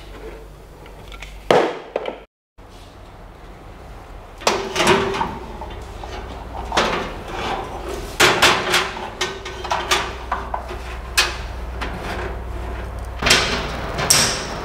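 Knocks, clatter and scrapes of a black steel server cabinet's panels being handled and fitted: a loose run of sharp strikes over several seconds, over a steady low hum.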